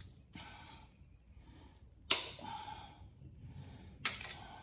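Locking pliers (vise-grips) snapping shut on, and releasing from, an exhaust-manifold stud in a cast-iron cylinder head, being worked to back out the stud. Two sharp snaps about two seconds apart, each with a short ringing tail.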